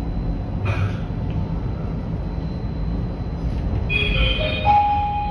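Steady low rumble of a tram running on its rails. About four seconds in, a short electronic chime of a few notes rising in pitch sounds over it.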